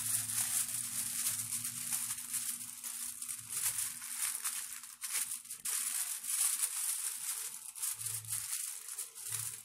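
Aluminium foil crinkling and crackling as hands fold it and press it tightly down around a glass dish, a continuous irregular crackle.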